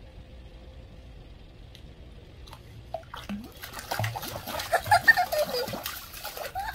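Pool water splashing as a Shih Tzu in a life jacket paddles its legs, held by its harness at the pool edge; the splashing starts about three seconds in and is busiest near the middle.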